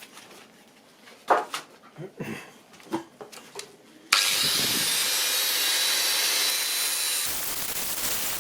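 Handling knocks and clatter, then about four seconds in a power grinder starts grinding the teeth off a steel hole saw, a loud, steady grinding hiss with a faint high whine that eases slightly near the end.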